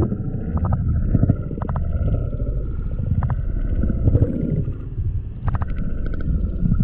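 Creek water heard through a camera submerged underwater: a muffled, low rumbling and gurgling with scattered small clicks and a faint steady high tone.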